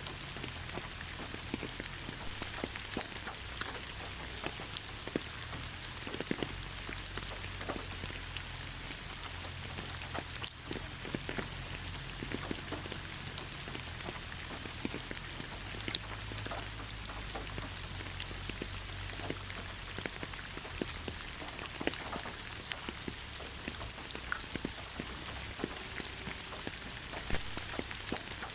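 Steady rainfall: an even hiss of rain with many single drops ticking sharply close by, scattered irregularly through it.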